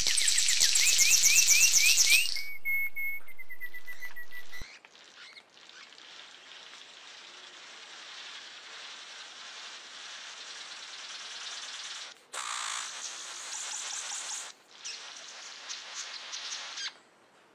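Birds calling: a loud, rapid trill of rising notes, then a held whistle that cuts off suddenly. After that comes a fainter hiss with bursts of fast chattering notes near the end.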